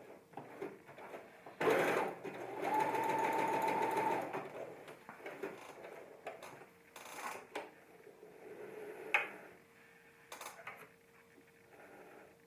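Household sewing machine running for about two and a half seconds, starting nearly two seconds in, zigzag stitching a four-hole button on in place with the feed dogs lowered. It is followed by a few short clicks and knocks.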